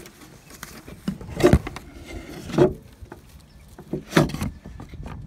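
Scuffling and knocking against wood, with rustling in wood-shaving bedding, as a chicken moves in a wooden coop. There are three louder scrapes, about a second and a half in, near the middle and about a second before the end.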